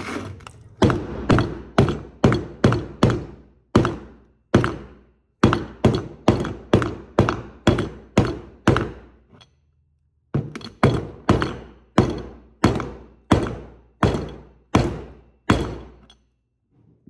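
Rapid repeated hammer blows driving a fridge-chilled bearing into an ATV's rear axle carrier, about two to three strikes a second, each ringing briefly. There is a short pause about halfway through, then the hammering resumes.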